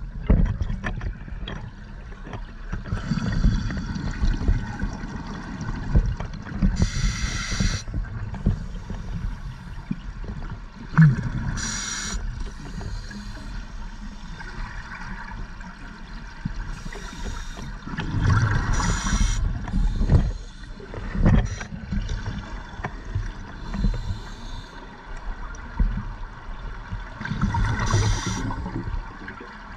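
Scuba regulator breathing underwater: hissing inhalations and bubbling exhalations come every few seconds over a steady low rumble of water.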